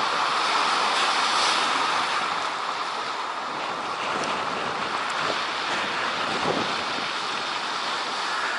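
Surf breaking and washing up a shingle beach: a steady hiss of foaming water, a little louder in the first couple of seconds.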